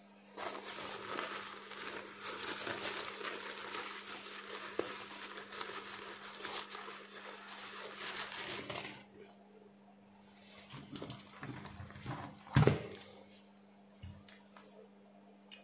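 A paper tissue crinkling and rustling in the fingers as it is rubbed over a small removed diode, for about nine seconds. Then quieter handling, a single sharp knock about twelve and a half seconds in, and a light click near the end, over a faint steady hum.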